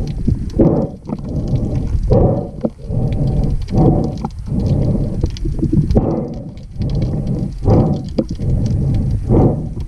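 Underwater bubbling and rumbling, in surges about every one and a half to two seconds, typical of a diver's exhaled air escaping as bubbles while working underwater.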